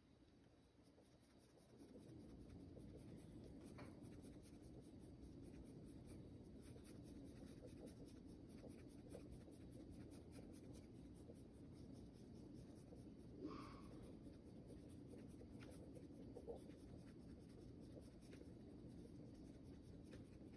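Faint scratchy brushing of a small flat paintbrush dabbing paint onto a sheet of canvas, with a few light taps.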